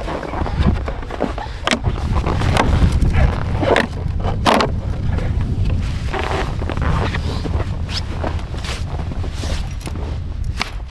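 Wind rumbling on the microphone, with irregular scrapes and crunches on top, like work or steps in snow.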